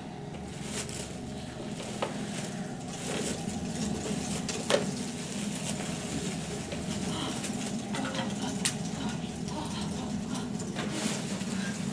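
Wooden sticks scraping and knocking together over a steady room hum, with scattered sharp clicks, the loudest about halfway through.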